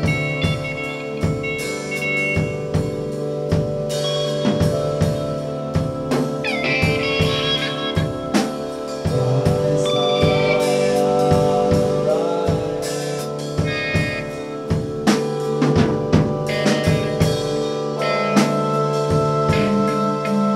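Music with a drum-kit beat of regular sharp hits over sustained held notes.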